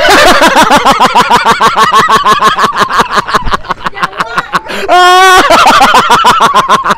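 A man laughing hard and loud: a fast, unbroken run of "ha-ha" pulses, about six a second, with a high wavering squeal of a breath about five seconds in, laughing until his jaw aches.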